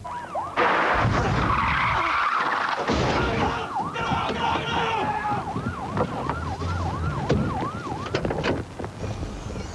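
Police car sirens on a fast yelp, rapid rising-and-falling whoops about two to three a second, over vehicle engine and road noise that comes in loudly about half a second in.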